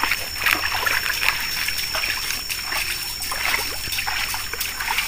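Hands splashing and sloshing in a shallow, muddy stream, groping through the water and mud for fish, with water trickling.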